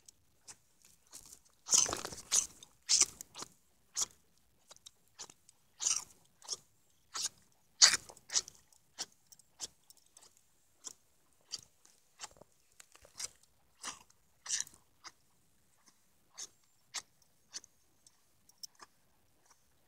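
A pony mouthing and nibbling a cat's fur up close: irregular crackling and smacking clicks from its lips and teeth, loudest in a cluster about two to three seconds in and again around eight seconds, then sparser.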